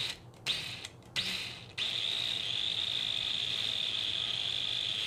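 Small 12-volt cordless drill: a few short blips of the motor, then a steady high whine from about two seconds in as it turns slowly, spinning a coil to wind fine 36-gauge wire around it.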